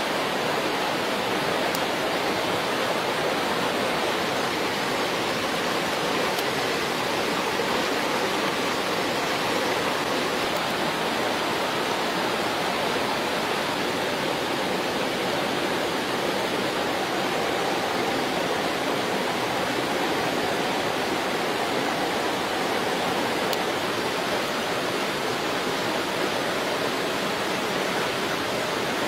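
A steady, even rushing noise like running water, unchanged throughout.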